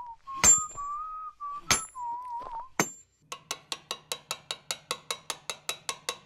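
Background music: a whistled melody over sharp, chiming clicks, then, about three seconds in, a quick steady ticking beat of about six ticks a second over a low hum.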